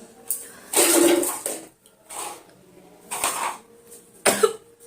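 A woman sneezing repeatedly, about five sharp bursts roughly a second apart, the loudest about a second in.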